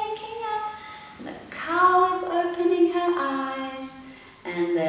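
A woman's voice imitating a rooster's crow, 'cock-a-doodle-doo', in long, sung-out syllables, with another call starting near the end.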